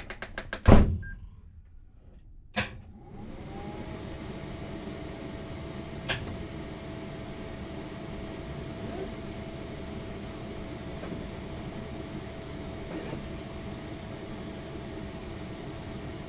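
Clicks and a sharp thump in the cockpit in the first second, then another click. About three seconds in, a small electric motor spins up and runs with a steady hum and whine, while the aircraft's engine is not yet running.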